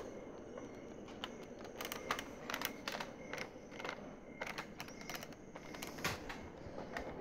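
Handling noise close to the microphone: irregular light clicks and taps, more frequent in the middle of the stretch, as the hand-held camera and a plastic toy blaster are shifted.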